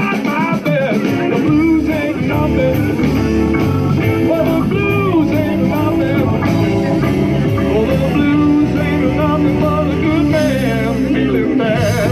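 Live band playing blues rock, with singing over it.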